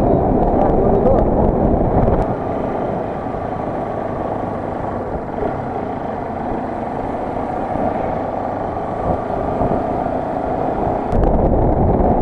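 Motorcycle running on the road with wind rushing over the microphone. The low wind rumble eases about two seconds in and comes back strongly near the end.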